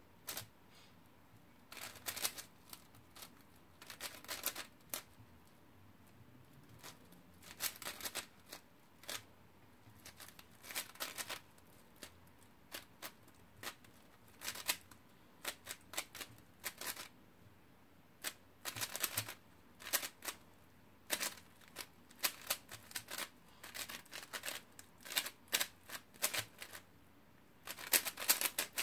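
QiYi WuShuang 5x5 speedcube being turned fast by hand in a timed solve: quick runs of plastic clicking and clacking as the layers snap round, broken by short pauses of a second or two.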